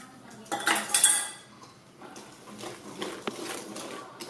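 Metal utensil clanking against a stainless steel mixing bowl, loudest about half a second to a second in. It is followed by quieter scraping and tapping as raisins are stirred into thick cookie batter.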